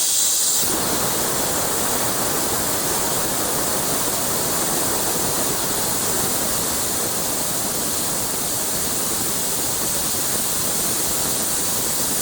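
Compressed air rushing out of the 200-litre tank of a G.G.A 3 hp air compressor through an opened valve, a loud steady hiss as the tank is drained of pressure.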